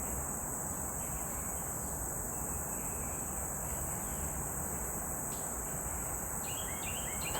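Steady, high-pitched chorus of crickets that does not break or pause, over a low outdoor background hiss.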